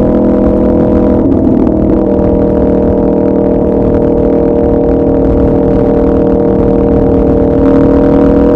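2016 Aprilia RSV4 RF's V4 engine through a de-catted SC Project CRT exhaust, running loud at steady high revs. Its note wavers briefly about a second in, then holds steady and gets a little louder near the end.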